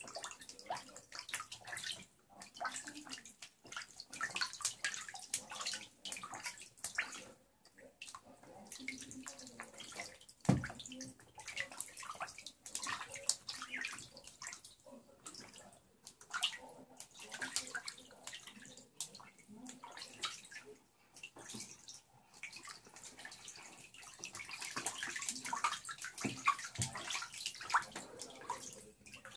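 Magpie ducklings paddling and splashing in shallow bathwater in a bathtub: a continual patter of small irregular splashes and drips, with one louder knock about ten seconds in.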